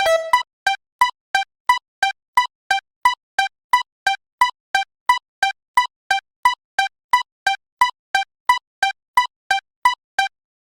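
Railroad level-crossing warning bell, the electronic 'kan-kan' ding of a Japanese crossing, ringing in even strikes about three times a second and cutting off abruptly near the end.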